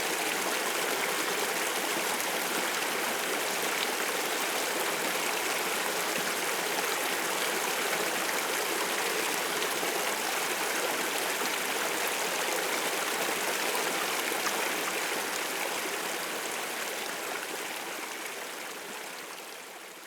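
Water stream flowing with a steady rushing sound, fading out over the last few seconds.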